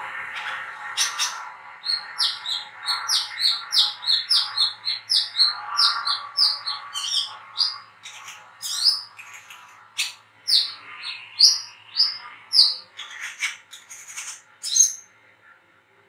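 Brown-throated sunbird (kolibri kelapa, or wiceh) giving its chattering call, a fast run of short, sharp, high chirps at about two or three a second, which breaks off shortly before the end.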